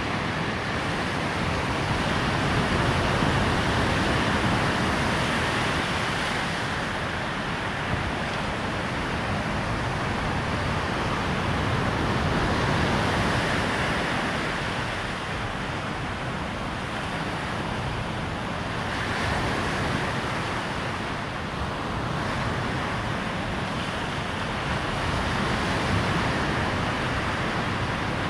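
Waves breaking on a sandy shore in a steady rush of surf, swelling and easing every several seconds, with wind mixed in.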